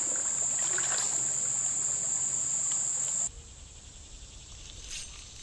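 Insects singing, a steady high-pitched trill over outdoor hiss, which cuts off suddenly about three seconds in and leaves quieter creek-side background.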